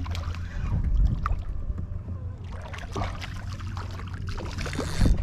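Wind rumbling on the microphone over water splashing and lapping around a fishing kayak, with scattered small knocks and a sharper knock about five seconds in.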